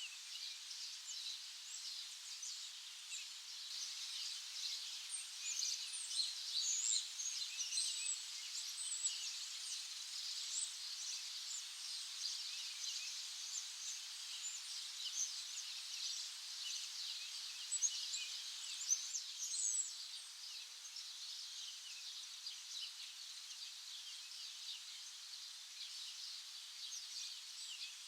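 Many small birds chirping together in a dense, steady chorus of short high calls, a few louder chirps standing out in the first half.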